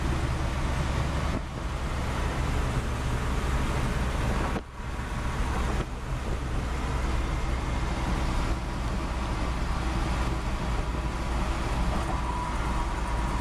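Steady engine, tyre and wind noise from inside the cab of a 6000 lb truck driving at speed, its 318 V8 running on wood gas. The sound briefly drops out about four and a half seconds in.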